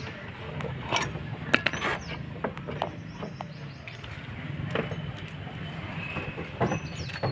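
Irregular metallic clicks and knocks of hand tools working on bolts and brackets at a car's front end, over a steady low hum.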